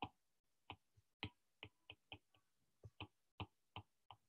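About a dozen faint, irregularly spaced taps of a stylus on a tablet as handwriting is written.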